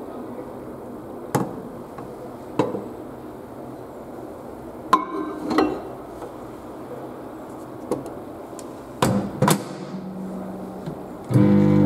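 A ceramic plate knocking and clinking as it is set inside a Beko microwave oven, with two loud knocks about nine seconds in as the door is shut. Near the end the microwave starts up with a steady hum.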